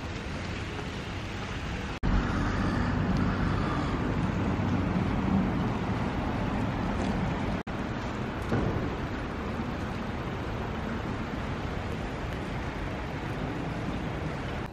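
Steady outdoor street ambience with traffic noise. The sound breaks off abruptly twice, about two and seven and a half seconds in, and is louder after the first break.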